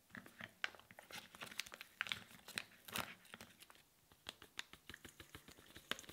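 A plastic zip-top pouch crinkling and rustling as it is handled and opened, in irregular sharp crackles.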